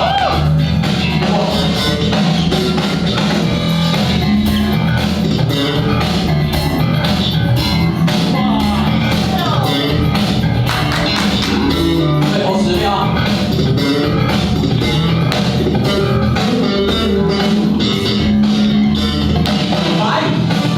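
Funk music from the DJ, played loud, with guitar, bass guitar and drums over a steady beat.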